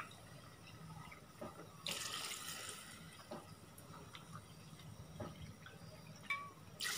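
Water poured into an aluminium pot of chicken pieces, in two short pours, one about two seconds in and one near the end, with a few faint knocks in between.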